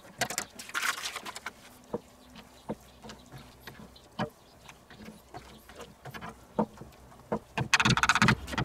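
Wooden spoon stirring a thick sauce in a cast-iron Dutch oven, with scattered knocks and scrapes of the spoon against the pot and a quicker run of them near the end. In the first second, rustling as gravy powder is shaken out of a cardboard packet.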